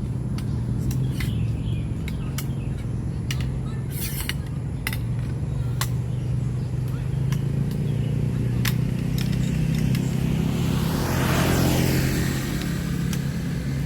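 An engine running steadily at idle, a low even hum, with scattered sharp ticks. A rushing noise swells and fades about eleven seconds in.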